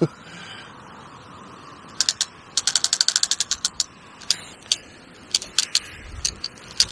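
Fishing reel's clutch clicking as a hooked fish, a big tench, takes line against the drag. The clicks come in a quick burst of about ten a second some two and a half seconds in, with scattered single ticks before and after.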